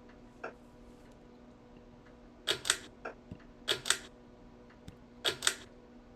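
Three pairs of sharp mechanical clicks, each pair a quick double click, over a steady low hum.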